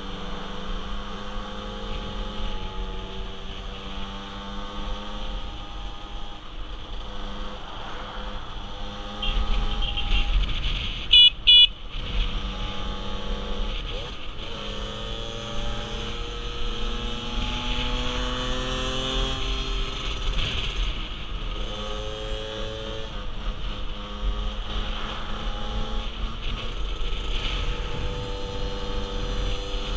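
A 50cc motorcycle engine running on the road, its pitch climbing and then dropping again and again as it pulls through the gears, with wind on the helmet microphone. About eleven seconds in, a horn beeps twice in quick succession.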